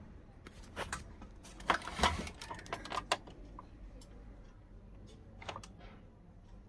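A quick cluster of sharp clicks and rattles in the first three seconds, then a few more clicks about two-thirds of the way through, over a low steady hum.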